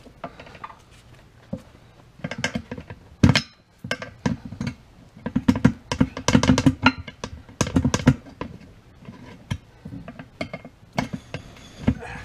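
Screwdriver prying and knocking against an ATV wheel's metal rim as the tire is worked off it: a run of irregular clicks and knocks, thickest in the middle, with one sharp knock about three seconds in.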